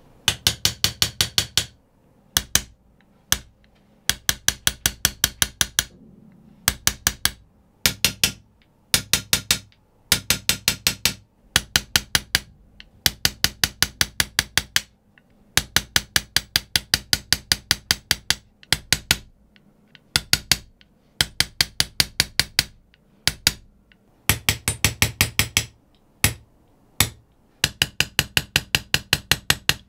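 Small hammer tapping a steel hand chisel, cutting characters into a Japanese kitchen knife blade: quick runs of sharp metallic taps, about eight a second, broken by short pauses.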